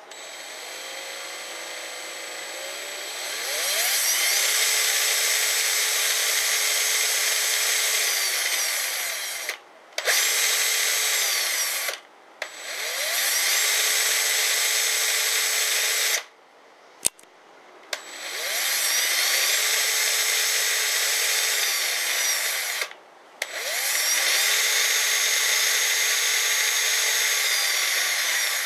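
Black & Decker 20V Max lithium cordless drill (model BDCDMT120) spinning its bit freely in the air. The trigger is squeezed and released in five runs, each winding up to a steady high motor whine and winding down again in the short gaps. The first run holds a lower speed for about three seconds before rising to full speed, and a sharp click sounds in one of the gaps.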